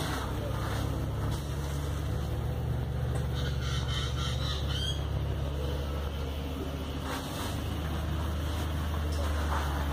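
Steady low drone of a running engine, with a brief rising squawk about four seconds in.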